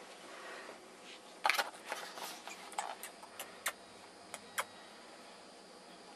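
Handling noise: a brief burst of rustling, then an irregular string of sharp clicks, starting about one and a half seconds in and stopping a little past halfway.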